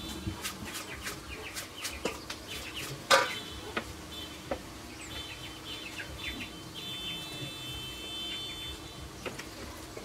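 Small metal starter parts clinking and scraping in a steel bowl as they are cleaned, with one sharp clack about three seconds in. Birds chirp in the background over a faint steady hum.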